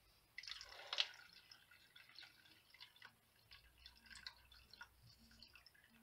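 Vinegar and peroxide copper solution poured from a plastic canister into a paper coffee filter, with a splash about a second in, then faint irregular trickling and dripping.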